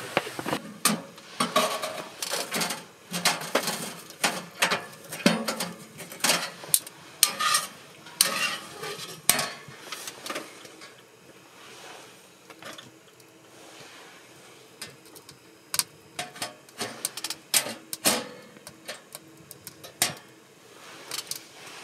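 Irregular metal clinks and knocks of cookware being handled around a camp wood stove. They are dense for the first half, thin out to a few soft ones, then pick up again near the end.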